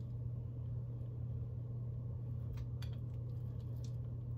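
A steady low hum, with a few faint light taps and rattles from about two and a half seconds in as black pepper is shaken from a spice shaker onto raw steak.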